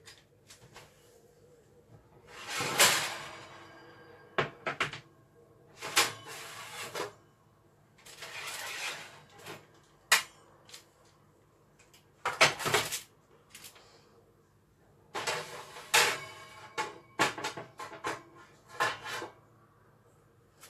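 Irregular knocks, clicks and rustles of objects being handled in a kitchen, coming in scattered bursts with quiet gaps between.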